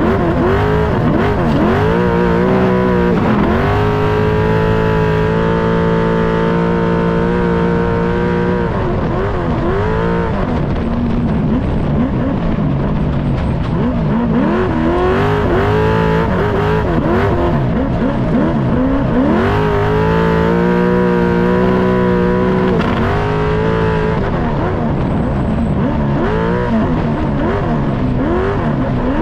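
Desert trophy truck's V8 engine at race pace, revving up and dropping back again and again with throttle lifts and gear changes, holding steady high revs for two stretches of several seconds.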